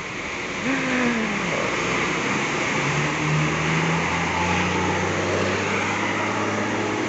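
Intercity coach bus driving slowly past through a muddy, waterlogged road, its engine running with tyres splashing through the mud and puddles. The engine note falls about a second in, then runs steady.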